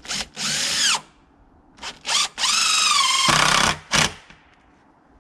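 Impact driver driving screws into plywood: a few short trigger blips, a brief run about half a second in, then a longer run from about two and a half seconds in whose whine drops in pitch as the screw bites, and a last short blip near four seconds.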